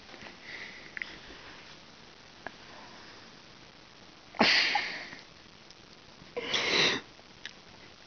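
Soft-coated wheaten terrier puppy snoring: two loud, noisy breaths through the nose, each about half a second long and some two seconds apart.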